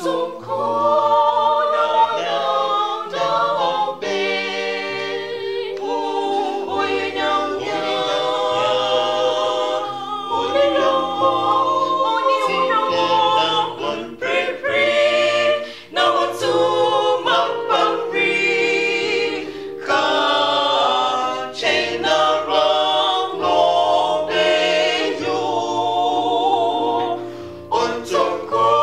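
Small mixed vocal group of two men and two women singing a gospel song in harmony, over an electronic keyboard holding low bass notes that change in steps.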